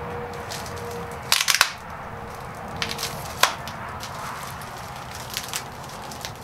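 Small clear plastic parts bag crinkling and crackling as it is pulled and torn open by hand, in short bursts of sharp crackles.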